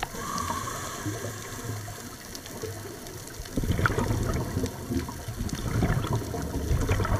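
Scuba diver breathing through a regulator underwater: a short hiss at the start, then two long bursts of bubbles from exhaling in the second half.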